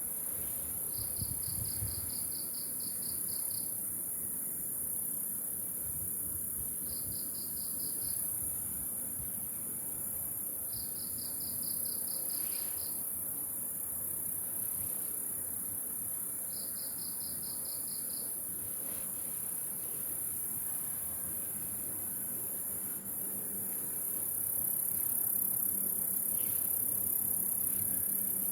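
Night-time chorus of crickets and other insects: a steady high shrill hiss, broken four times by spells of rapid pulsed chirping that each last a second or more.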